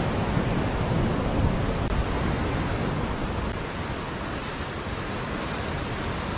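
Sea surf washing and breaking, a steady rushing noise with wind buffeting the microphone, a little stronger in the first two seconds.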